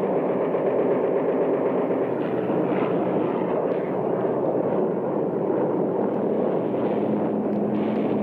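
Combat soundtrack of a steady aircraft engine drone mixed with continuous machine-gun and cannon fire during a low-level strafing attack on ships.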